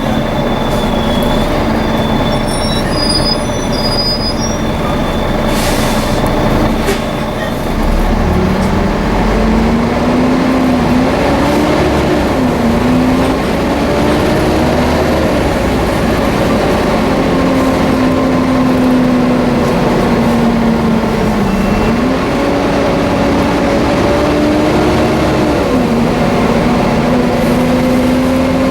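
A Volvo B7TL double-decker bus's drivetrain running on the move, with a loud whining tone (the 'hoover' noise) over the engine. The whine rises and falls in pitch several times and dips briefly now and then as the bus's speed changes.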